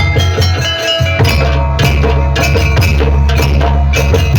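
Live band music driven by rapid kendang (Javanese hand drum) strokes, over held keyboard notes and a heavy bass line.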